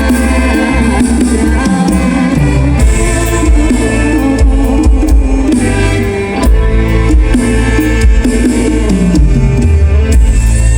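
Live band music played loud over a concert PA, with heavy bass, drums and a singing voice.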